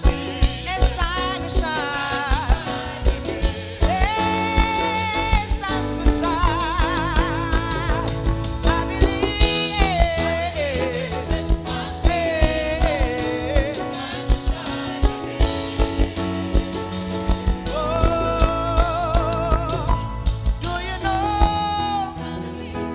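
Gospel praise music: a solo singer's voice with vibrato over a band with bass and a steady drum beat.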